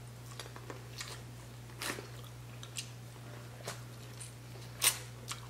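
Mouth sounds of biting and chewing boiled corn on the cob: sparse soft crunches and wet clicks, the loudest a little before the end, over a steady low hum.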